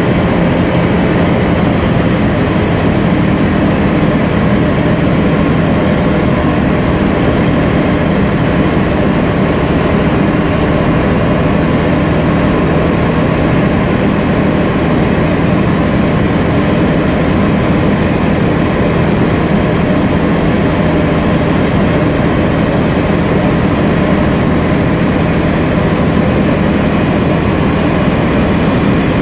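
Bristell NG5 ultralight's piston engine and propeller in steady cruise, heard inside the cabin: a loud, unchanging drone with a low hum over a rushing hiss.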